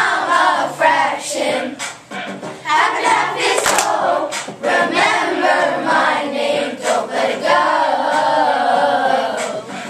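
A group of schoolchildren rapping and singing a fraction rap together in unison over a backing music track.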